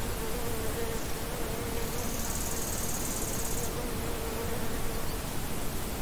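A flying insect buzzing close by, a steady, slightly wavering hum that stops about five seconds in. A high insect chirring joins briefly in the middle, over a steady hiss.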